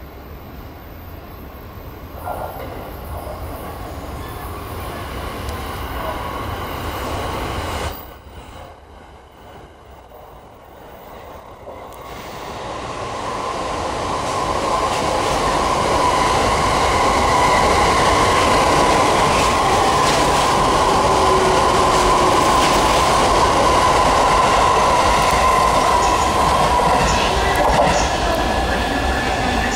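E233-series electric train running through the station at speed without stopping: wheels on rail with a steady whine. The sound builds, drops away briefly, then rises to a loud, steady run as the cars pass.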